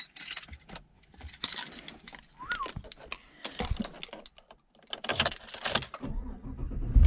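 A bunch of keys jingles several times as the key is worked into a Chevrolet's ignition. Near the end a low rumble comes up and the engine starts.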